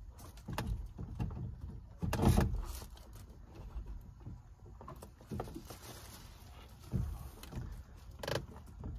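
Scattered clunks and knocks of a tow mirror and door hardware being handled and worked into place at a Chevy Silverado's door, the loudest knock about two seconds in.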